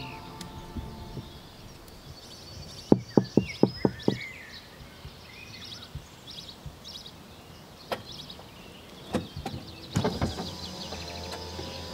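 Songbirds chirping over outdoor background noise, with a quick run of about six sharp knocks about three seconds in and a few more knocks near the end.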